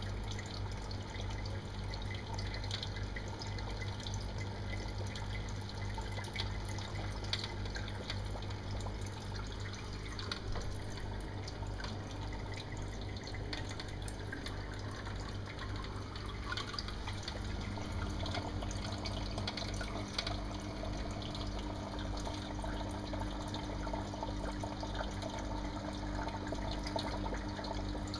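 Aquarium aeration: water bubbling and trickling with small scattered pops, over a steady low hum. A second, slightly higher steady hum joins about two-thirds of the way through.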